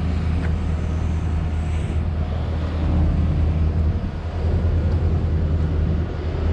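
Motorbike engine running steadily while being ridden, a low, even drone.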